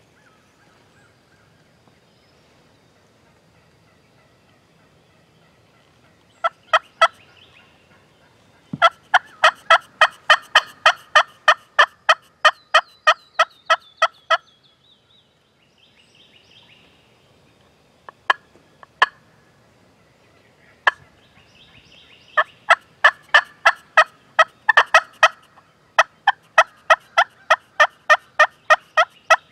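Wild turkey yelps: loud runs of evenly spaced, sharp calls, about three or four a second, in several long series with short pauses between them.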